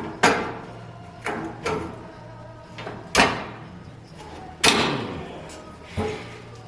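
Steel hood hinge and coil spring clanking and knocking against each other and the tools as the spring is forced onto the hinge, about seven sharp metal clanks, each ringing on briefly; the loudest come about three and four and a half seconds in.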